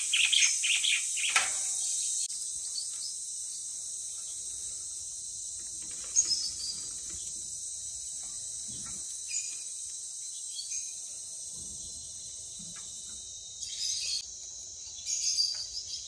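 Lovebirds chirping: a quick run of shrill chirps in the first second or so, then single short high chirps every few seconds, over a steady high-pitched background chatter.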